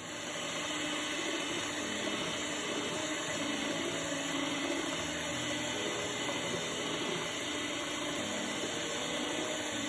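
Electric hand mixer running steadily, its beaters whirring through a frothy egg mixture in a bowl.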